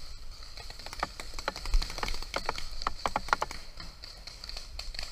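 Paintball fire: irregular sharp pops and smacks, thickest between about one and three and a half seconds in, from markers shooting and paintballs striking around a round tube bunker.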